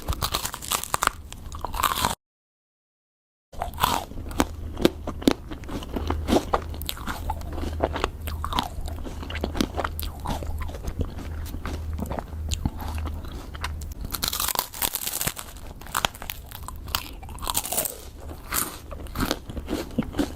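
Close-miked mukbang eating of fish ice cream: crisp crunching bites and wet chewing, repeated clicks and crackles throughout, with a low steady hum beneath. The sound cuts out completely for about a second and a half, starting about two seconds in.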